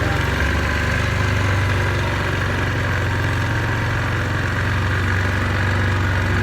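Yamaha Grizzly 450 ATV's single-cylinder four-stroke engine running steadily at an even speed.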